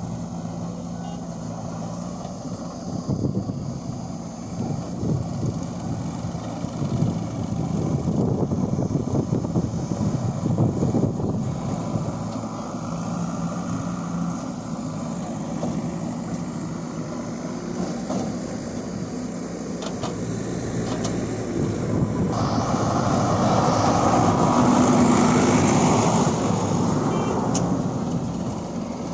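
JCB 3DX backhoe loader's diesel engine running and working under load, rising and falling. About 22 seconds in it gets louder, with a rush of harsher noise for several seconds.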